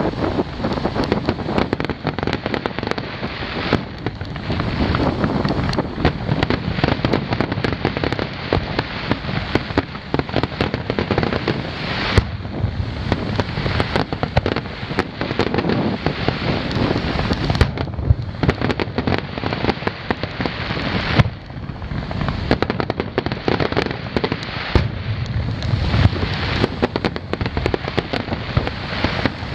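Fireworks bursting in a dense, continuous barrage of booms and crackling. A couple of sharper bangs stand out, about twelve and twenty-one seconds in.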